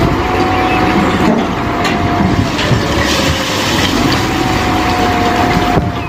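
Large wheel loader at work: its diesel engine running under load with a steady whine, and rubble clattering as it pours from the raised bucket.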